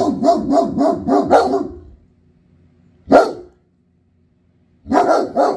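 German Shepherds alert-barking out the window at a delivery man. A fast string of barks comes first, then one loud single bark about three seconds in, then a few more barks near the end.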